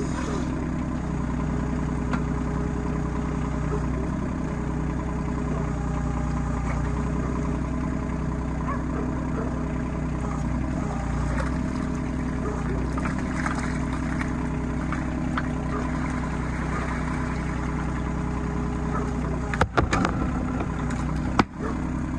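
RK25 compact tractor's diesel engine running steadily at a constant speed, with two short sudden sounds near the end.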